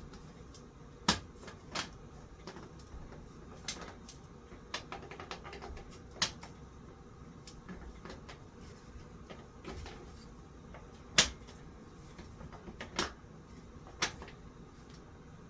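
Irregular sharp clicks and light knocks of tools and metal parts being handled while a ceiling fan is taken apart, with a louder knock about eleven seconds in.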